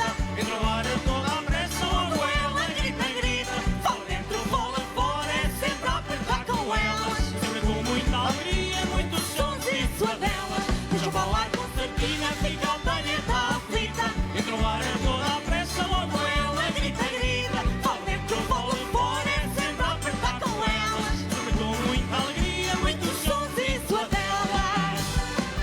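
A group of concertinas playing a tune together over a steady, even beat.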